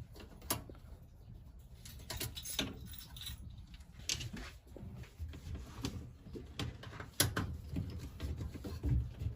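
Faint, irregular clicks and scrapes of a screwdriver undoing the screws on a Siemens washing machine's top cover and handling the loosened panel, with a sharper click about half a second in and another about seven seconds in.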